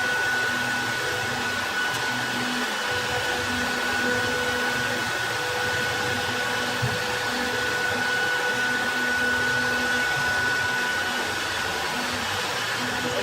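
PK-1325 CNC wood-carving router running: a steady motor noise with a thin, high, unchanging whine, and a lower hum that switches on and off every second or so.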